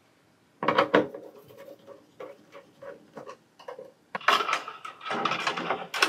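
Hands handling wires at a power supply's screw terminals inside a plywood control box. About half a second in there is a sharp knock, then a run of light clicks and taps, then rubbing and rustling of the wires over the last couple of seconds.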